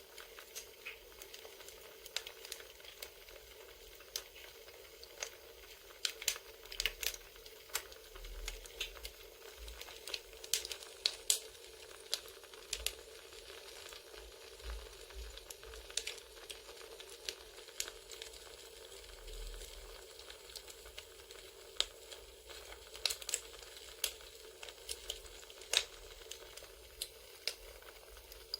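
Recorded campfire with irregular sharp crackles and pops over a steady low hiss.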